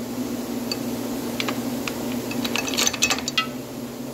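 Steel 81X roller chain clinking as its master link is worked apart by hand: scattered sharp metallic clicks, bunching together about two and a half to three and a half seconds in, over a steady low hum.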